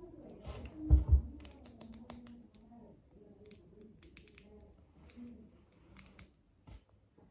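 Two dull thumps about a second in, followed by a run of light clicks and taps, with faint voices in the background.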